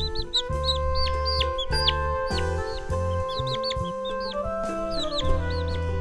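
Chicks peeping: many short, high chirps, each falling in pitch, over background music with sustained notes and a steady bass.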